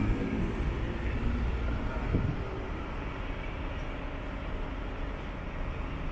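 Street traffic: car engines running as cars move slowly past, loudest in the first two seconds, with a brief knock about two seconds in.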